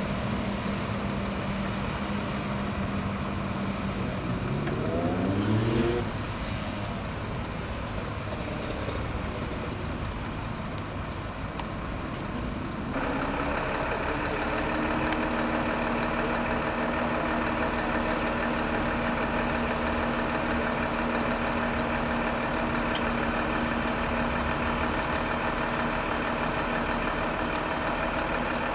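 Piston engine of a Socata Rallye single-engine light aircraft running, its pitch rising briefly about five seconds in. About thirteen seconds in the sound changes abruptly to a louder, steady engine note.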